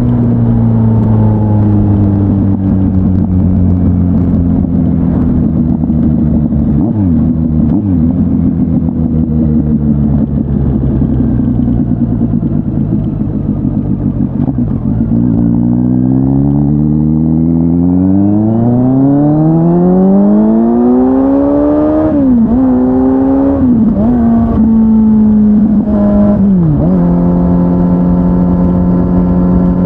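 Kawasaki Z900's inline-four engine through an SC-Project S1 aftermarket exhaust, heard on board while riding. The engine note eases down for about fifteen seconds, with two quick dips, then revs up steadily under acceleration. It is cut by three sharp drops in pitch as the rider shifts up through the gears, and settles into a steady cruise near the end.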